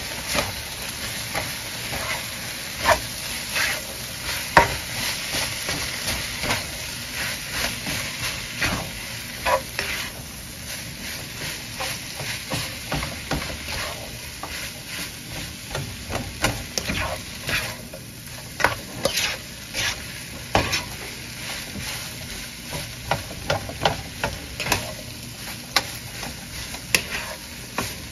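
Fried rice sizzling in a frying pan while a spatula stirs and turns it: a steady frying hiss with irregular clicks and scrapes of the spatula against the pan.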